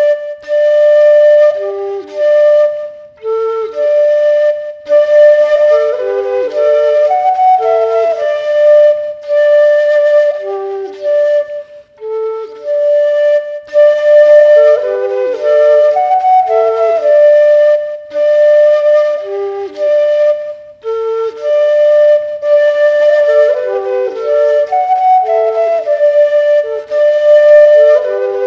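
Bansuri bamboo flute playing a solo melody in short phrases, with brief pauses between them.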